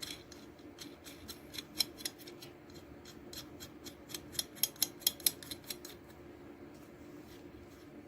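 Irregular sharp metallic clicks and taps from fitting solenoid valve coils and tightening their nuts with a hand tool, over a faint steady hum; the clicks come thickest about four to five seconds in and stop about a second later.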